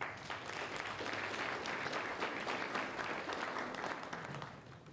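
Audience applauding in a hall, many hands clapping, dying away near the end.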